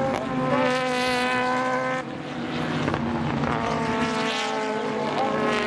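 Super GT race car engines running hard through a corner, several cars together giving a layered, steady engine note. The pitch and loudness shift abruptly about two seconds in.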